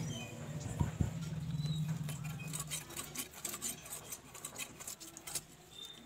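Fish being cut and scaled against a boti blade: a run of small scraping clicks as the flesh and scales are drawn across the edge. A low steady hum runs under it and stops about halfway through.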